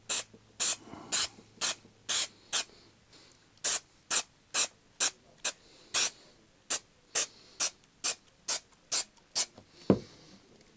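Aerosol can of spray adhesive hissing in quick short bursts, about two a second, with a brief pause about three seconds in. Near the end there is a single thump as the can is set down on the wooden workbench.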